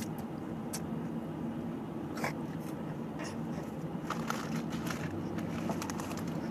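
Someone nibbling and chewing a small piece of chocolate candy, with a few scattered short crunchy clicks, over the steady hum of a car's cabin.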